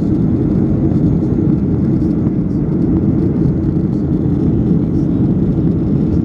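Steady low roar of a jet airliner's engines and airflow heard from inside the passenger cabin, holding an even level throughout.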